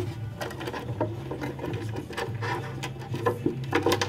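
Irregular small clicks and rubbing as a metal nut is turned by hand onto a bolt through the floor of a wooden bicycle crate.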